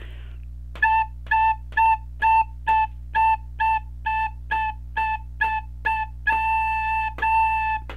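Soprano recorder playing a single pitch in a rhythm-reading exercise: a run of short tongued notes at about two a second, then two longer held notes at the end.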